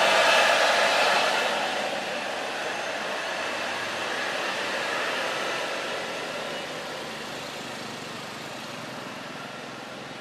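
Mercedes-Benz OH 1626 coach's rear-mounted diesel engine running as the bus climbs close past, a loud rushing noise loudest in the first second or so, then fading steadily as the bus pulls away up the road.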